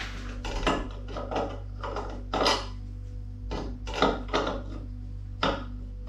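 Metal monoblock tap spanner clinking and knocking against the tap's fixings while the tap is tightened onto the basin: a dozen or so short, irregular clicks.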